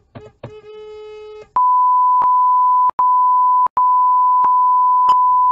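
A car horn sounds a few quick taps, then a held note for about a second. It is followed by a loud, steady censor bleep: a pure 1 kHz tone lasting about four seconds, broken twice by brief gaps.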